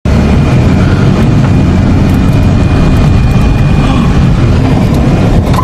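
Jeep engine running steadily under way, loud and low-pitched.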